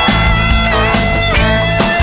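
Background rock music: an instrumental passage with guitar lines over a steady beat, no singing.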